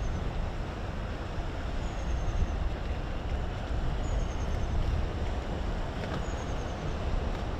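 Steady low rumble of an inland cargo vessel's engine under way, with a faint short high chirp repeating about every two seconds.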